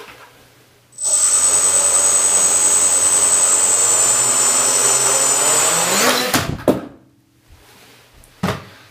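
Gaui quadcopter's four electric motors and propellers spinning up suddenly about a second in and running with a steady high whine for about five seconds. Near the six-second mark the pitch slides up and it flips over on take-off, with a brief clatter of props against the floor before the motors cut out; a single thump follows near the end. The flip comes from the GU344 flight controller being mounted facing backwards.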